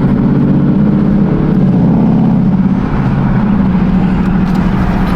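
Car engine and exhaust running at a steady low drone while driving along.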